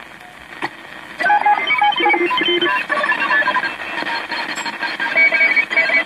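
Shortwave radio signal from a vintage Century IV receiver's speaker: about a second of faint static as the dial turns, then a rapid run of short beeping tones jumping between pitches.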